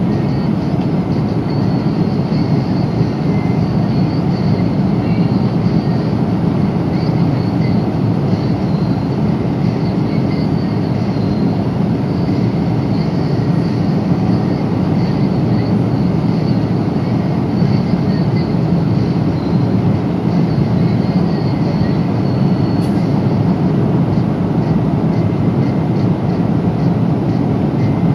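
Steady roar of passenger cabin noise inside a Boeing 777-300 in cruise flight: engine and airflow noise, with one sharp click about two-thirds of the way through.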